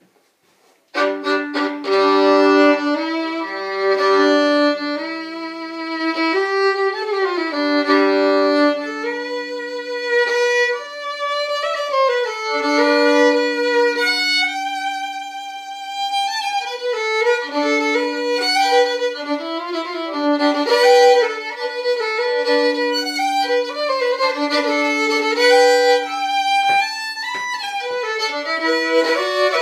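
Solo fiddle played with a bow, a lively tune that starts about a second in. In the first stretch two strings sound together, a low note held under the melody.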